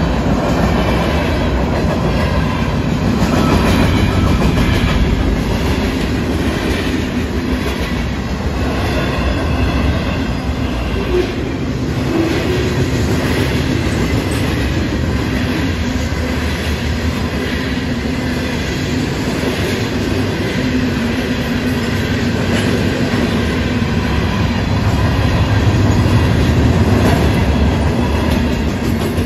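Freight cars of a long freight train rolling past on the rails at close range: a loud, steady rolling noise of wheels on track. This is the tail end of the train, with the last car going by near the end.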